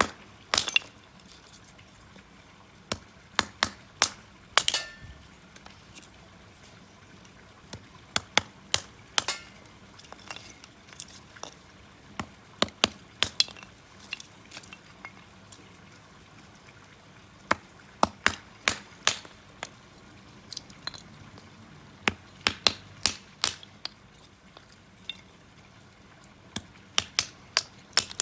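Irregular sharp snaps and clinks at a small wood-stove fire, some single and some in quick clusters of two or three, with quiet between them.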